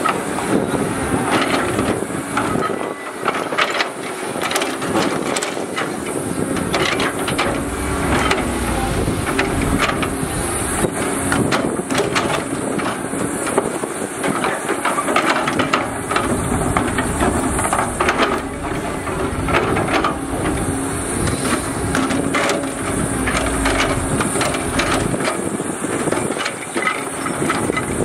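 Diesel engines of a Cat 320D excavator and a tipping dump truck running, with a steady hiss and many short knocks and clatters throughout.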